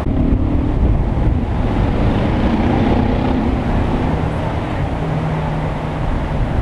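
Steady low rumble of street traffic, with wind buffeting the microphone and a faint engine hum.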